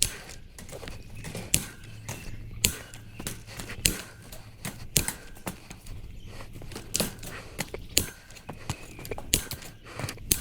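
Irregular metallic clanks and knocks of steel reinforcing mesh sheets being handled, some with a brief ring, over a low steady hum.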